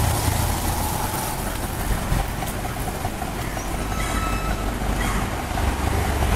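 Low, steady motor-vehicle engine rumble, strongest at the start and again near the end.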